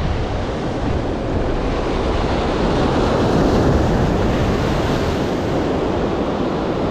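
Ocean surf breaking and washing over the boulders of a rock breakwater, with wind buffeting the microphone. The surge swells for a couple of seconds around the middle as a wave crashes up against the rocks in a burst of spray.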